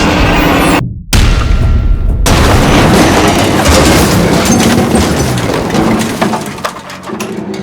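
Film soundtrack with a sudden loud boom about a second in, right after a brief cut-out, and music under it. The sound then dies away over the last couple of seconds.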